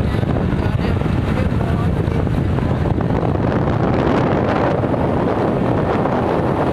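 Heavy wind noise on the microphone from riding on a moving scooter, with a man talking under it.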